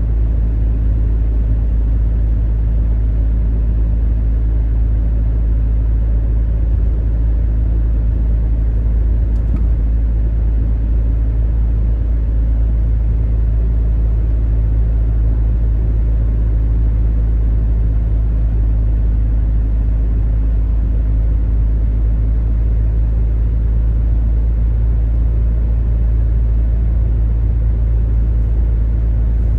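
Steady low rumble of a car driving at road speed, tyre and engine noise heard from inside the cabin.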